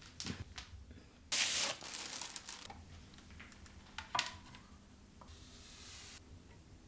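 Handling noises: scattered clicks and taps, a short loud rustle about a second in, and a sharp click a few seconds later, followed by a soft hiss before the music starts.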